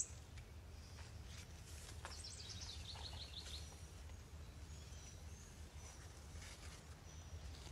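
Birds singing: a rapid trill of high chirps a little over two seconds in, stepping down in pitch, and a few short thin whistles later, over a low steady rumble.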